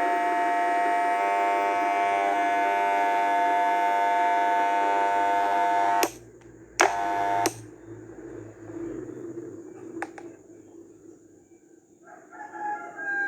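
Wahl Super Taper hair clipper's magnetic motor buzzing steadily. It is switched off about six seconds in, switched on again for under a second, then off. A cat meows near the end.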